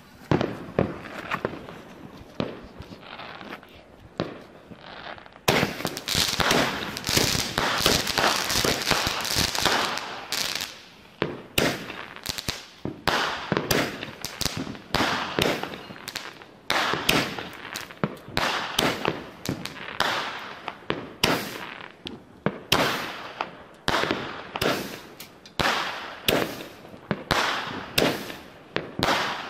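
Pinto 'Lord of Fire' 25-shot firework battery firing, its tubes launching shots one after another with crackling. It is quieter with scattered pops at first; about five seconds in a dense run of crackling starts, then the shots come steadily, about one or two a second.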